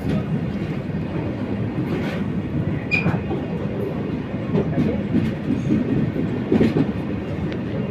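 Express passenger train running on the track: a steady low rumble with a few clicks and knocks, and a brief high squeak about three seconds in.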